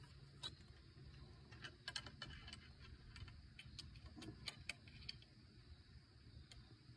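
Near silence: a faint low rumble with a scattered run of small clicks and ticks, thickest around two seconds in and again around four to five seconds in.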